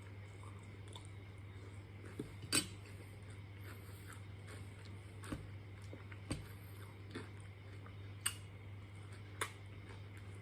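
Cutlery clinking against dishes about six times during a meal, the loudest clink about two and a half seconds in, over a steady low hum.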